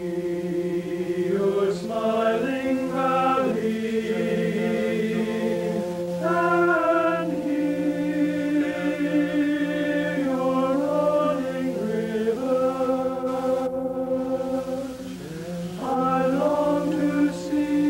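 Slow closing music of long held chords, changing every second or two, over a steady low drone, with a brief dip in level about three-quarters of the way through.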